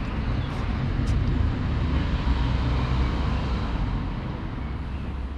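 Outdoor city street noise: a steady low rumble with a broad hiss over it, easing off slightly near the end.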